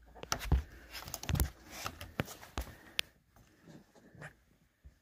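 Plastic push-pin clips of a door seal being pressed into holes in the door frame by thumb: a run of small clicks and knocks with some rubbing over the first three seconds, then a few faint taps. The clips pop as they seat, which shows they are in.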